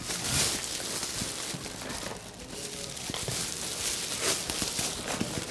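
Plastic shopping bag rustling and crinkling as groceries are put into it, with the loudest rustles at the start and about four seconds in.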